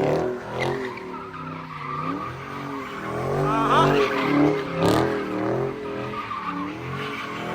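A car sliding under power: its engine revs up and falls back over and over while the tyres squeal. There is a short sharp crack about five seconds in.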